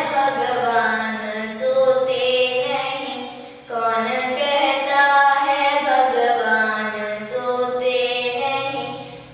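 A young girl singing solo in Carnatic style, holding long notes with gliding ornaments. She pauses briefly for breath about a third of the way in and again near the end.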